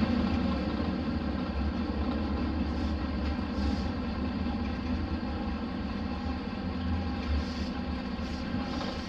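Diesel engine of a Hino Blue Ribbon RC monocoque route bus running steadily while the bus is under way, heard from on board.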